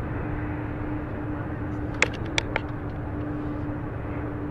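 Inside a vehicle's cabin while driving at steady speed: constant road and engine rumble with a steady hum. A quick run of about four sharp clicks comes about two seconds in.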